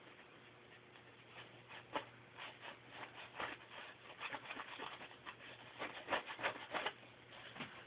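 Linen cloth dampened with alcohol rubbing and wiping glass: a run of short, irregular scrubbing strokes that come thickest about two seconds in and again near the end.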